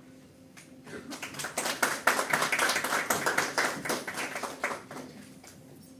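Audience clapping: the applause builds about a second in, holds, and dies away about five seconds in.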